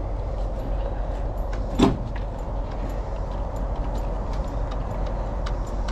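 Kawasaki KLX300 dual-sport motorcycle being eased down a metal loading ramp off a truck. Under a steady low rumble there is one sharp clunk about two seconds in, with faint light ticks scattered through.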